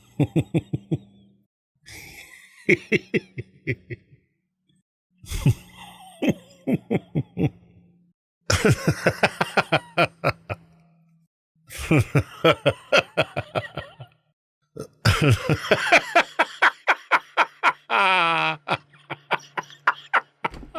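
A man laughing in about six bouts of rapid 'ha-ha-ha' pulses, separated by short pauses; the last bout is the longest.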